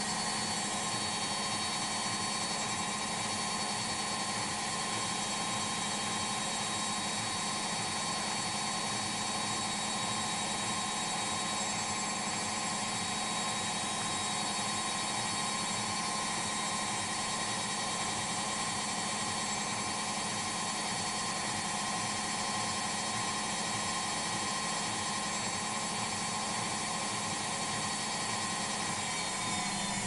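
Ariston front-loading washing machine in its spin cycle with an unbalanced test load, the drum spinning fast with a steady motor and drum whine. Near the end the whine starts to fall in pitch as the spin begins to slow.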